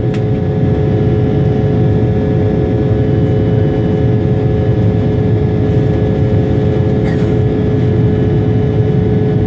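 Steady cabin noise of an Embraer 175 airliner in its climb after takeoff: the constant drone of its GE CF34 turbofan engines and the airflow, with a steady hum of held tones through it.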